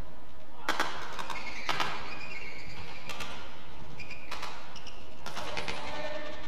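Badminton rally: rackets striking the shuttlecock in sharp cracks, about one a second.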